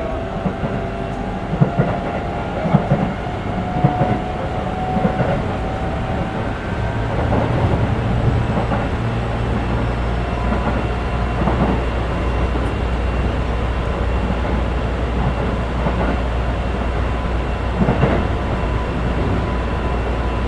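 Keikyu 1500 series electric train with Mitsubishi GTO-VVVF traction inverters running, heard inside the car: thin inverter tones in the first few seconds, then a steady low motor hum, with wheels clicking over rail joints.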